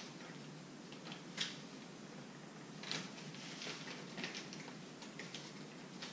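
Faint, scattered clicks and knocks of a dog stroller's front wheel being pushed onto its leg, a few sharp ones standing out. The wheel is going on upside down and sticks part way.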